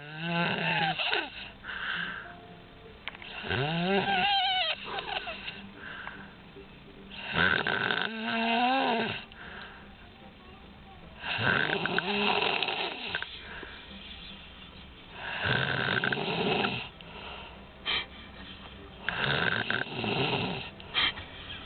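An elderly woman snoring in deep sleep: a long rasping snore about every four seconds, some carrying a whistling tone that rises and falls in pitch.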